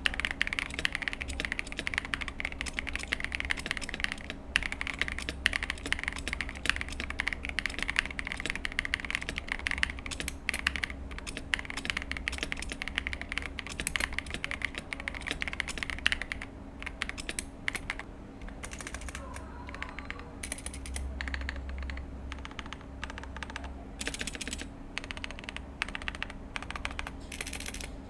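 KDBFans KDB67 Lite mechanical keyboard, with a plastic PC plate and stock stabilizers, being typed on quickly in a dense run of key clicks. About two-thirds of the way through, this gives way to slower, separate presses of the long stabilized keys on the stock stabilizers.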